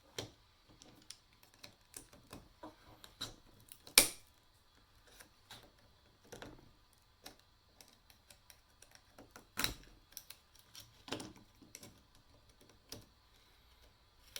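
Irregular light clicks and taps of a plastic audio-guide handset and its circuit board being handled. There is a sharp knock about four seconds in and another near ten seconds.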